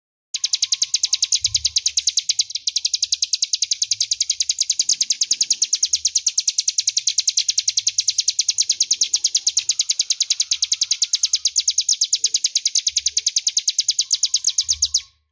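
Ciblek gunung (mountain prinia) singing one long, very fast, even trill of high notes that stops abruptly near the end.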